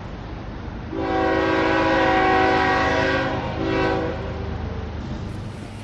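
Train horn sounding a long multi-note blast about a second in, then a shorter second blast, over the steady rumble of a running train.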